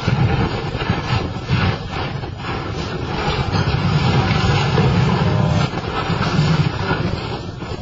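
Heavy excavator working at a ship's steel hull: its engine rumbles steadily, mixed with wind noise on the microphone, and a few knocks of steel come about two seconds in.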